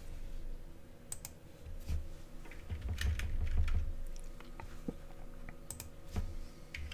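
Scattered keystrokes on a computer keyboard and mouse clicks, with a few dull low thuds, the loudest a little past the middle.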